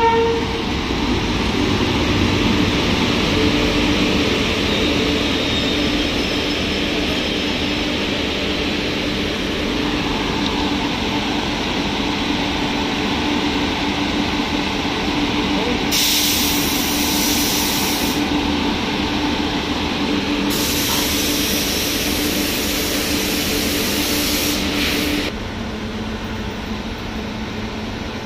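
WAP-7 electric locomotive rolling slowly to a stop at the head of an express train, its wheels rumbling on the rails over a steady hum. There are two spells of loud hissing, one about 16 seconds in and a longer one from about 21 to 25 seconds. After that the hum drops lower and quieter.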